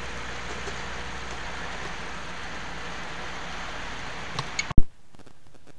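Steady engine rumble and road noise inside a moving truck's cab. Near the end a single sharp, loud click cuts it off, and only a quieter background hum remains.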